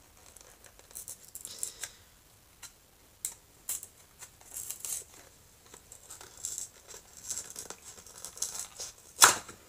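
Crinkling and clicking of a Re-Ment miniature blind box and its plastic wrapping being opened by hand: scattered light crackles and ticks, with one sharp click near the end.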